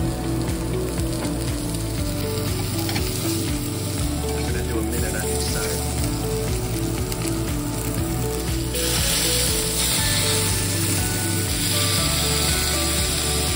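Steak searing in a hot cast-iron skillet, the fat and oil sizzling steadily while the meat is moved about with metal tongs. The sizzle grows louder about nine seconds in.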